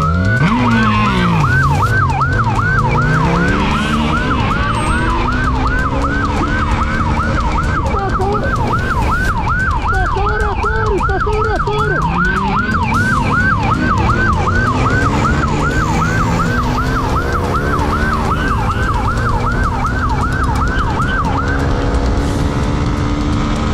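Police siren on a fast yelp, rising and falling about two to three times a second, over a motorcycle engine revving up and down and low road noise; the siren stops near the end.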